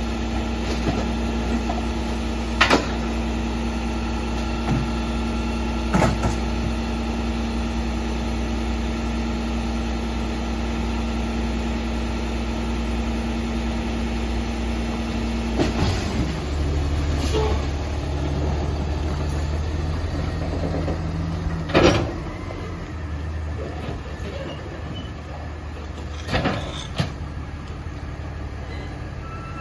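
Rear-loader garbage truck's engine idling, with several sharp bangs as recycling is thrown into the hopper. About halfway through the engine note changes and the truck moves off, quieter toward the end.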